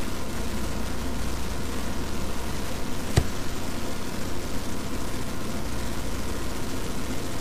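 Steady low hum and hiss of background noise, with a single sharp click a little over three seconds in.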